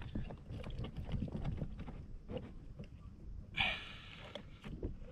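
Small knocks and rustles of hands handling a caught fish and fishing gear on a plastic kayak, with a short breathy hiss about three and a half seconds in.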